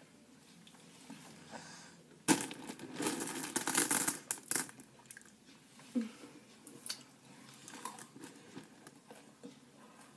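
Quiet chewing and mouth sounds from people eating. About two seconds in, a loud crinkling rustle starts and lasts about two seconds.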